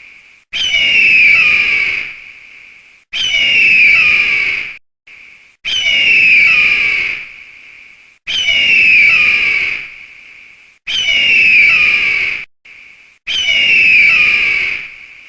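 An eagle's scream, a harsh falling cry, repeated six times about every two and a half seconds with short gaps; each cry is the same sample looped.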